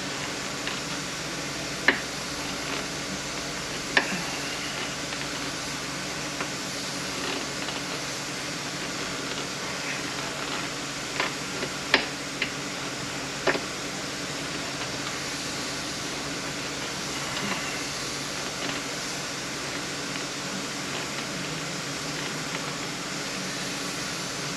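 Scattered sharp clicks and knocks of tools and parts being handled during an automatic transmission teardown: two single knocks in the first few seconds and a cluster of four about halfway through, over a steady fan-like hiss.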